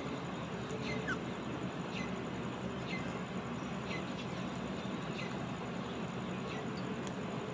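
Parrot giving short, high chirps about once a second over a steady background hiss.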